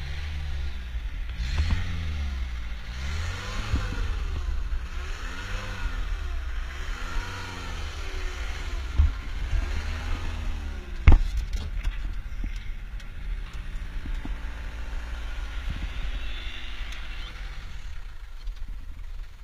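A vehicle engine revving up and down again and again, its pitch rising and falling every second or two. About eleven seconds in comes a single sharp knock, the loudest sound here, after which the engine runs at a steadier pitch.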